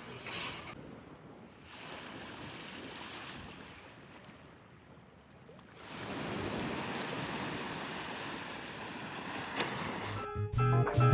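Sea waves washing onto the shore, swelling and fading, with wind noise on the microphone. Acoustic guitar music comes in near the end.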